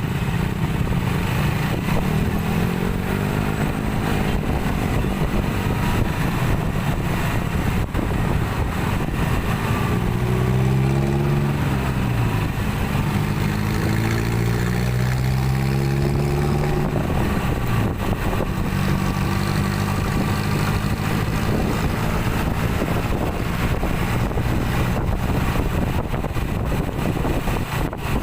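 Street traffic of motorcycles and cars running past. Engine pitch rises and falls as vehicles pull away and slow down.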